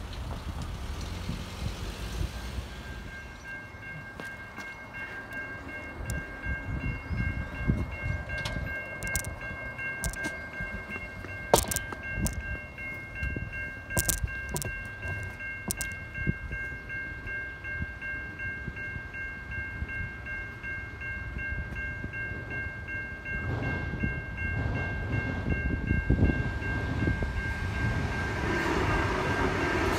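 Level crossing warning bell, a Safetran Type 3 electronic bell, ringing steadily while the crossing is activated, with a few sharp clicks around the middle. Near the end a train comes in, its noise rising.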